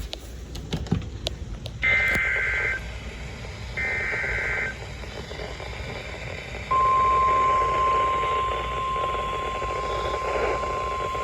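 NOAA Weather Radio alert sequence. Two roughly one-second bursts of SAME data tones (a buzzy warble), about two seconds apart, come first. Then, about seven seconds in, the steady single-pitch 1050 Hz warning alarm tone starts and holds. Together they signal that a warning is about to be broadcast.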